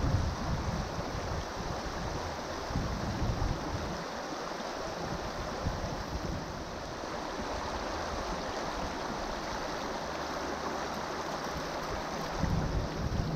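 Shallow river current rushing steadily over a gravel riffle around the wading angler, with low rumbling gusts on the microphone in the first few seconds and again near the end.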